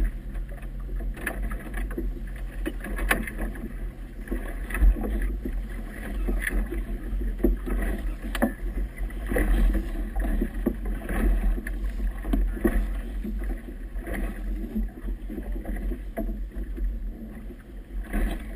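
Choppy river water slapping and splashing against a small boat's hull, with gusty wind buffeting the microphone. A low steady hum stops about halfway through.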